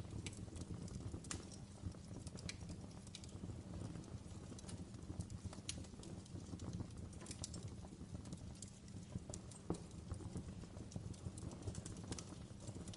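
Wood fire burning in a fireplace: a low steady rumble of flames with irregular sharp crackles and pops, several a second.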